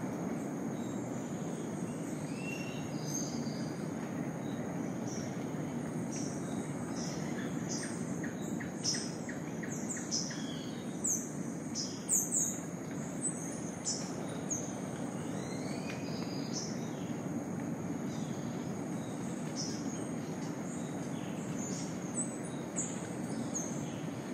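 Rainforest dawn chorus: birds calling with many short, sharp downward-sweeping high notes, busiest in the middle, over a steady high-pitched insect drone and an even low hiss.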